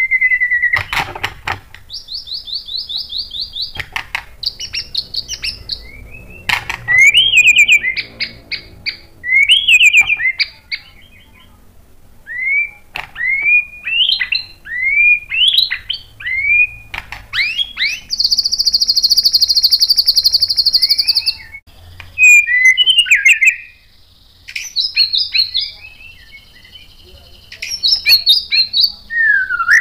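White-rumped shama (murai batu) singing a varied, loud song of fast trills and rising whistled notes, with a long buzzing trill of a few seconds past the middle. Sharp clicks are scattered through it.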